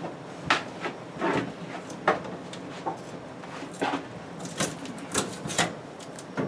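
Packing tape being peeled and plastic packaging handled: scattered crackles and clicks, coming thicker about two-thirds of the way through.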